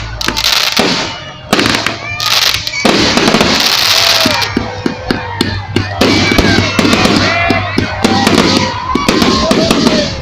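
Fireworks going off in quick succession: many sharp bangs and crackles, dense and loud.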